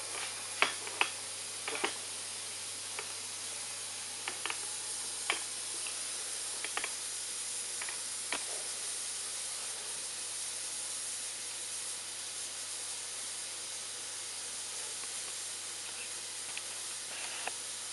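Gas burner under a small 3-inch model steam boiler hissing steadily, with a few sharp clicks and knocks of handling in the first eight seconds or so.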